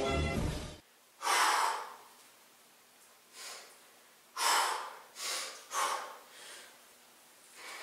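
A man taking about six sharp, forceful breaths with short pauses between them, psyching himself up before a heavy barbell deadlift.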